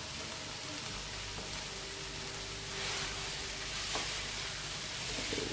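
Rice and chopped peppers sizzling in a hot frying pan while rice is scraped in from a bowl and stirred with a wooden spoon. The sizzle is a steady hiss that swells a little about three seconds in.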